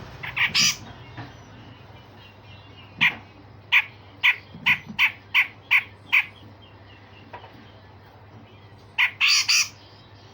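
Grey-cheeked bulbul (cucak jenggot) calling: a couple of harsh rasping calls, then a run of about eight short, sharp notes at roughly three a second, and another harsh rasping burst near the end.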